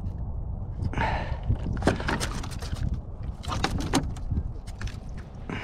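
Clicks and knocks on a plastic kayak deck as a freshly caught flathead is handled and unhooked, a cluster of sharp knocks and a rustle through the middle, over a steady low rumble.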